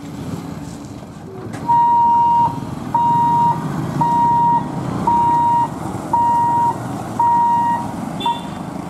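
A level-crossing boom barrier's electronic warning beeper sounds six long, even beeps about a second apart, then one short one, as the boom lifts. Underneath, motorcycle engines idle and pull away across the tracks.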